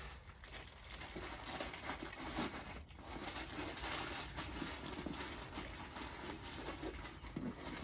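Continuous faint rustling and crinkling: a leather handbag being handled and moved among its packaging.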